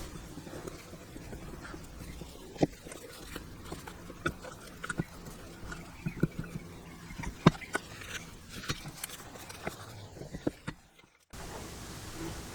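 Irregular light knocks and clicks of tools and metal parts being handled during restoration work, over a low steady background hum. The sound cuts out briefly near the end.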